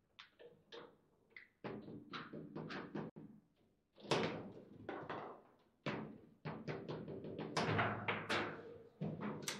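Foosball table in play: irregular sharp clacks and knocks as the plastic players strike the ball and the metal rods are jerked and spun, growing louder and busier from about four seconds in.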